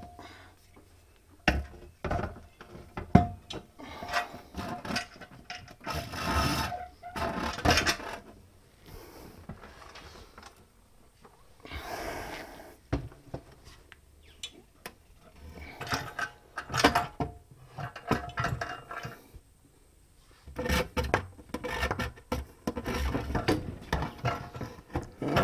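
A steel air compressor tank being handled onto a metal shelf: irregular knocks and clunks, with stretches of scraping and rubbing as it is slid and shuffled into place.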